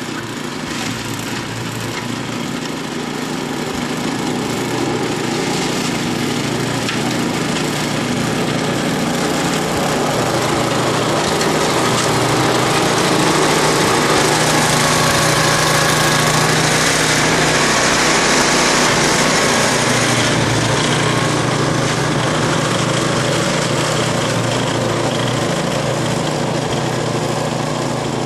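Ariens snowblower's small gas engine running steadily under load while clearing snow, with the hiss of its auger and chute throwing snow. It grows louder toward the middle as it comes close, then eases off a little as it moves away.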